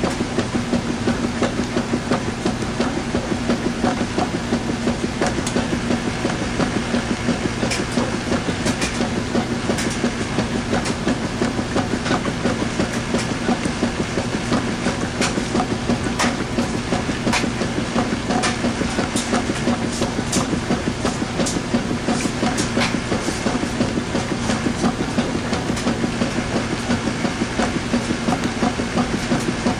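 Washing machine running a load of towels: a steady motor hum under a fast, even rhythmic churning, with scattered light clicks.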